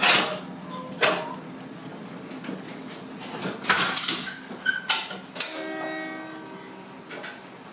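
Metal clanks and knocks inside a stopped Kiha 54 diesel railcar, about six in all, the last followed by a ringing tone that fades over about a second and a half, over a steady low hum.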